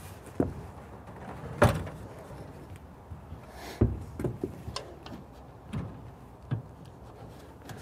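Diamond-plate truck toolbox being shifted by hand on the pickup's bed rails: a series of irregular knocks and clunks, about seven in all, the loudest about one and a half seconds in.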